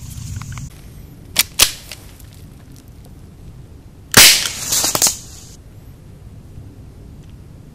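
Gamo P25 CO2 air pistol fired once, a sharp crack about four seconds in, followed by a weaker burst about half a second later. Two light sharp clicks come earlier, about a second and a half in.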